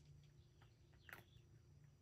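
Near silence, with faint scattered small clicks from a cat eating or lapping at its bowl; one click about a second in is a little louder.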